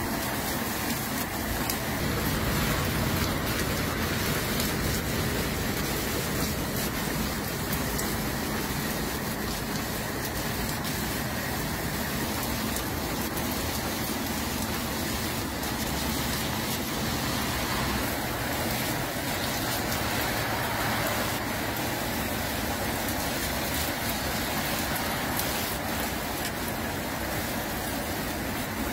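Hail and rain falling steadily on a garden and paving: a dense, even hiss scattered with many small sharp clicks of hailstones striking.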